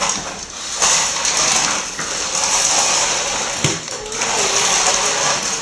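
Remote-controlled toy Hummer's small electric motor and gears whirring in spurts as it is driven, with brief pauses between runs and one short knock a little past halfway.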